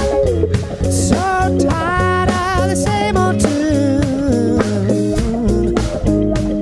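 Blues-rock band playing: a guitar lead line with bent, wavering notes over bass guitar and a steady drum beat.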